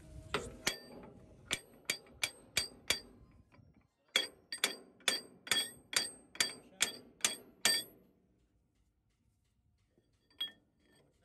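Hammer striking metal with sharp, ringing blows: about seven strikes, a short pause, then about nine more at roughly two a second, and one last strike near the end.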